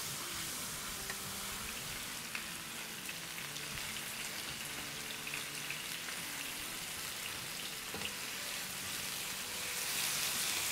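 Marinated chicken pieces and masala paste sizzling in hot oil in nonstick pans, a steady sizzle with light stirring from a silicone spatula turning the pieces; the sizzle grows a little louder near the end.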